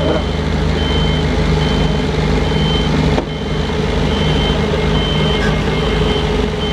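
Crane's heavy diesel engine running steadily as it lifts a precast concrete bridge girder, with an electronic warning alarm giving high beeps, a little more than one per second.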